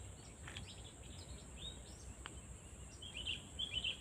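Short, scratchy chirps of brown-throated sunbirds in a few quick clusters, one about one and a half seconds in and more near the end, over a steady high hiss.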